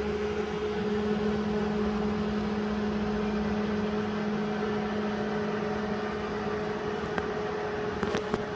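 Steady running of an electric motor: a constant hum with an even whir, and a few light clicks near the end.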